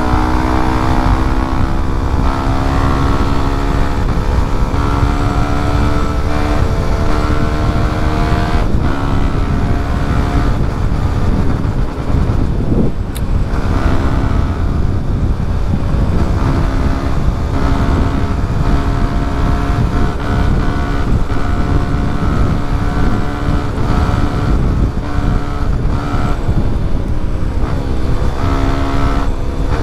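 Yamaha WR155R's single-cylinder four-stroke engine running steadily at highway speed, with heavy wind rush. The engine note breaks off briefly about nine seconds in and again about thirteen seconds in.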